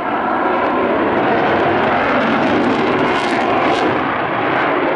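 Loud jet noise from an F-16 fighter's single jet engine as the aircraft flies its display, swelling sharply at the start and then holding steady.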